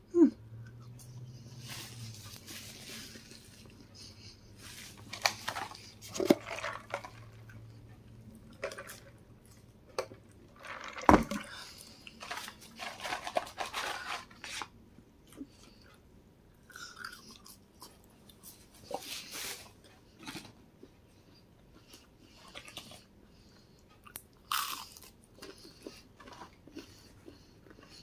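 Close-up chewing and crunching of McDonald's french fries, with irregular clicks and crinkles, some sharper and louder than others, as a hand works in the paper fry carton.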